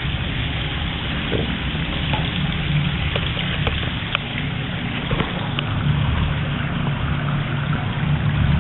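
Floodwater coming in through a building's main doorway, a steady rushing noise with a low rumble and a few sharp drips or splashes in the middle.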